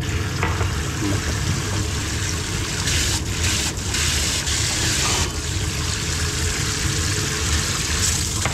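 Water spraying from a pull-down kitchen faucet into a sink, running steadily throughout. It gets louder and hissier for a couple of seconds in the middle while the spray head is lifted and aimed.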